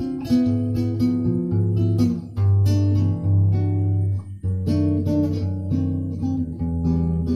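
Guitar music: a steady run of plucked notes and chords over a moving bass line, with a short break about four seconds in.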